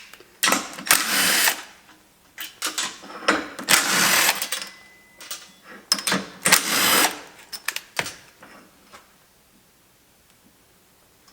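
Steel ball-style vise base being loosened by hand at its clamp handle: three rasping metal-on-metal bursts of about a second each, with scattered clicks, in the first seven seconds or so.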